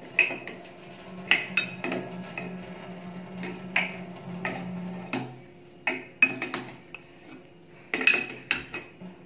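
Sharp, irregular metallic clinks of an open-end spanner knocking against the chrome mixer tap and its wall nuts as the tap is loosened off the wall, with several clinks in quick succession in the second half. A low steady hum runs underneath and stops about halfway through.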